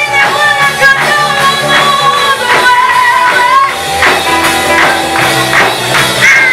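Live church praise music: singing voices held over a band with a steady percussion beat.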